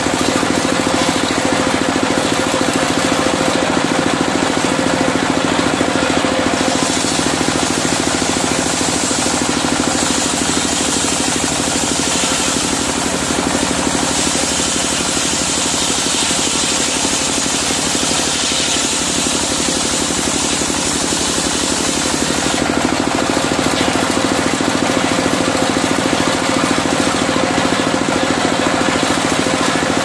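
Stationary diesel engine running steadily and driving a circular saw blade that rips medang timber lengthwise into beams. The high cutting hiss grows brighter about six seconds in and eases back near the end.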